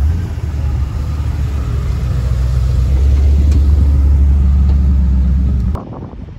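C3 Chevrolet Corvette's V8 running at low speed, a steady low exhaust note that grows louder near its tailpipes. It cuts off abruptly near the end, giving way to a quieter passing car.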